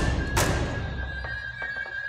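Dramatic background music: a heavy hit about half a second in over a single held high note, with a few faint ticks afterwards.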